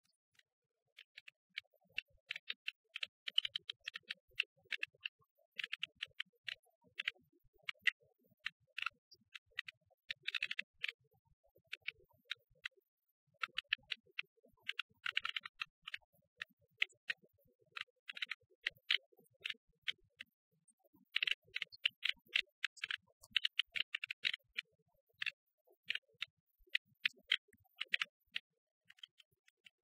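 Irregular runs of light, sharp clicks and ticks, several to a second, in clusters with short pauses between them.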